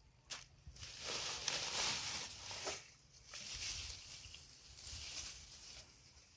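Rustling and scraping of grass and wet mud close by, in two long stretches of hissy noise, the first starting about a second in and the second about three seconds in.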